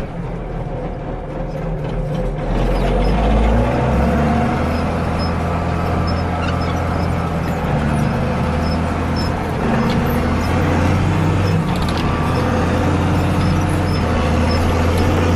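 Ford 8830 tractor's diesel engine running; it grows louder about two and a half seconds in, then runs on steadily.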